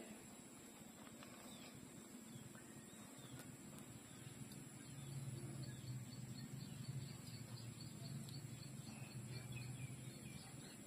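Faint sounds of a puppy suckling at its mother's teat, growing stronger about halfway through. A rapid row of faint high chirps, about four a second, runs in the background through the middle.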